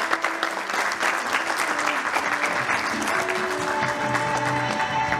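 Audience applauding, with music playing underneath; held musical notes come through more clearly about three seconds in.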